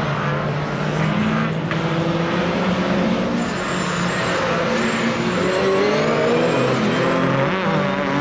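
Several rallycross saloon cars racing past together, their engines revving up and down through the gears, with pitches overlapping.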